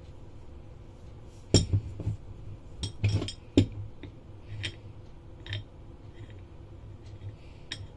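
Sellery 74-590 chrome-vanadium 8-in-1 swivel socket wrench being turned by hand: its rotating socket head clinks and clicks metal on metal in the yoke. A quick cluster of sharp clinks comes between about one and a half and four seconds in, followed by a few lighter, spaced clicks.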